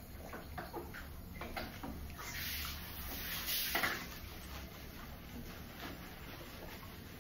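Hands scrubbing shampoo lather into a wet dog's curly coat: soft wet rubbing and squelching with scattered small taps, strongest in the middle.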